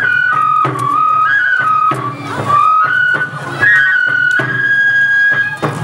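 Bon odori festival music: a flute plays a stepping melody of held notes over a steady beat of taiko drum strikes.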